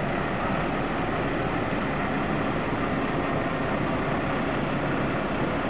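Diesel engine of an articulated lorry running steadily as the truck manoeuvres slowly, with a low hum over an even rumble.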